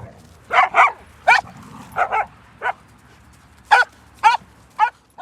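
A dog barking in a run of short, high-pitched yips, about ten of them, often in quick pairs; it cuts off suddenly near the end.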